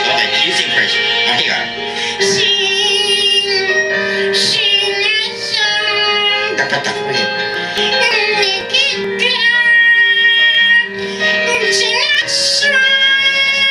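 A ventriloquist singing in a high, childlike puppet voice over backing music.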